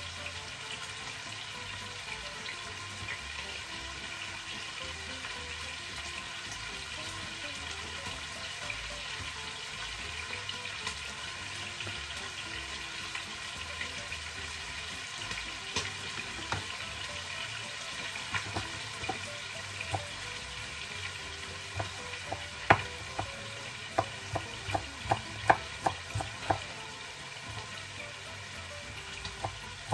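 Chicken frying in a pan with a steady sizzle. From about two-thirds of the way in, a chef's knife chops coriander on a bamboo chopping board in a quick series of sharp taps, the loudest sounds here.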